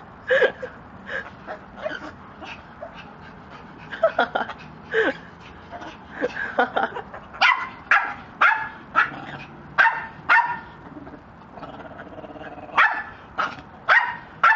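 A dog barking repeatedly in short, sharp barks, coming fastest in the middle, then a short lull before a few more barks near the end.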